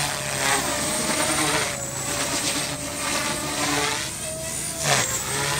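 Align T-Rex 250 micro electric RC helicopter in flight: a steady high-pitched motor whine over the buzz of its rotors, its pitch wavering as it manoeuvres. It swells briefly about five seconds in as it passes close.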